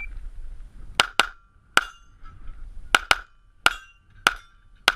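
Rapid gunfire on a practical shooting stage: eight shots in about four seconds, several fired as quick pairs, with a faint ringing tone lingering between them.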